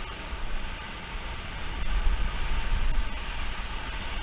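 Whitewater river rushing, with a low rumble that gets louder about two seconds in.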